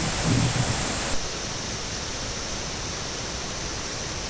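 Waterfall: a steady rush of falling water. About a second in there is a cut, and the hiss turns slightly duller.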